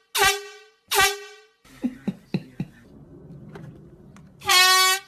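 Air horn blasted twice in quick short bursts, each sliding down a little in pitch as it dies away. A few light knocks follow, then one steady, louder blast of about half a second near the end.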